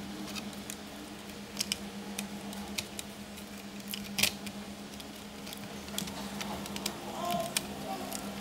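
Scattered light clicks and taps of a laptop motherboard and its plastic base being handled, the sharpest about four seconds in, over a steady low hum.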